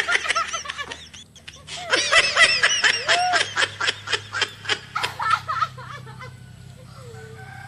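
A person laughing hard in a fast run of short, high-pitched ha-ha pulses, about five a second, that trails off after about five and a half seconds.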